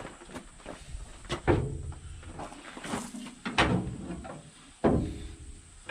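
Heavy clunks and knocks of steel parts being shifted and fitted on a combine, three loud ones a second or two apart among smaller knocks, each with a short ring.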